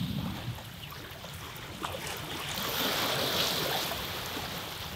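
Ocean surf washing onto the beach, a wave swelling up about halfway through and then easing off.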